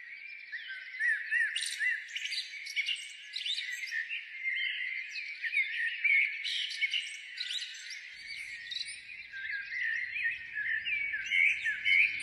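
A dense chorus of small birds chirping and twittering: many quick, high, overlapping chirps, each rising or falling in pitch, thin with no low end.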